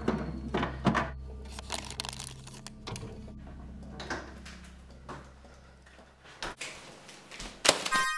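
Fridge-freezer door being opened and handled: a run of clicks, knocks and rattles, thickest in the first second, over a low drone that fades out about six and a half seconds in. A sharp knock near the end is the loudest sound.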